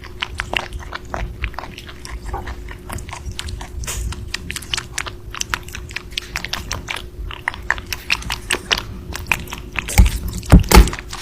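An animal chewing crunchy food: a quick, irregular run of crunching bites, with a few louder knocks near the end.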